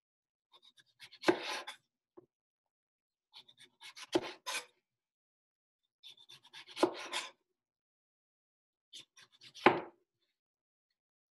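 A kitchen knife cutting the rubbery skin off a mango in four downward strokes, each with light ticks and scrapes and ending in a sharp knock of the blade on the cutting board, about every three seconds.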